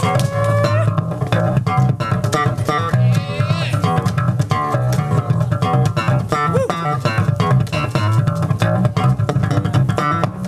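An electric bass guitar and an acoustic guitar playing together live, a steady stream of quick, sharply plucked notes over a strong bass line.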